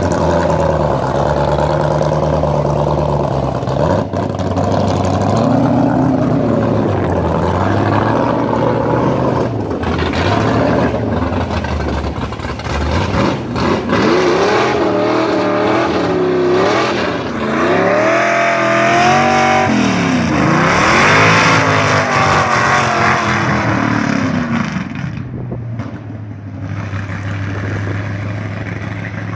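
1969 Camaro's 540 cubic-inch big-block V8 running at a steady low pitch, then blipped in several rising-and-falling revs. From about halfway it accelerates hard, the pitch climbing and dropping again and again as it pulls through the gears. In the last few seconds it fades to a steadier, lower sound.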